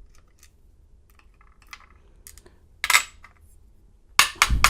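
Small metal clicks and taps from handling a disassembled padlock cylinder's pins and springs: faint ticks, one sharp click about three seconds in, then a quick run of three louder clicks near the end.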